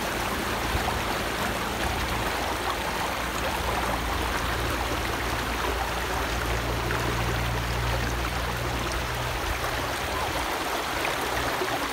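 Shallow river running over rocks and riffles: a steady rush of flowing water.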